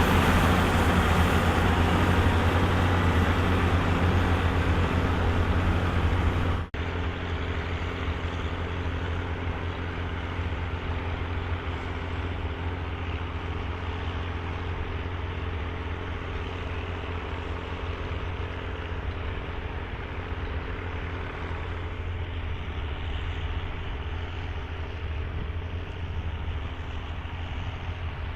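Volvo BM tractor's diesel engine running steadily, pulling a plough. About seven seconds in the sound changes abruptly and is duller after that.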